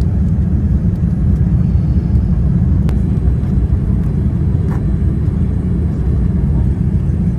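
Boeing 787-10 airliner cabin noise in flight on the descent toward landing: a steady low rumble of engine and airflow heard from inside the cabin.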